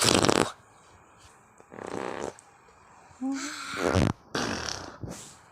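Fart sounds: four short buzzy bursts, each about half a second, spaced a second or more apart, with a brief vocal sound just before the third.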